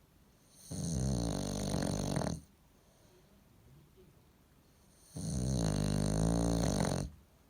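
Bulldog snoring in its sleep: two long, low snores of about two seconds each, the second starting about five seconds in.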